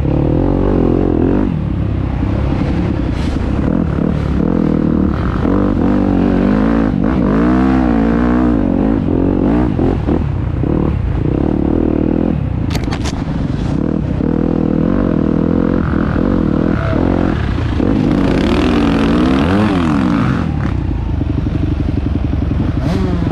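Enduro dirt bike engine revving up and down off-road, its pitch rising and falling every second or so with the throttle, with a few sharp knocks about halfway through.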